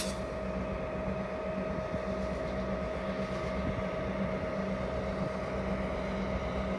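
Diesel freight locomotive engine running steadily, a low drone with a steady whine above it.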